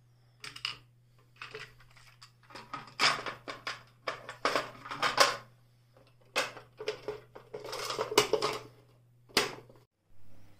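Hard plastic sewing-machine accessory box and its tray of presser feet and needles being handled: irregular rattling, clicking and knocking of plastic parts and the small accessories in them.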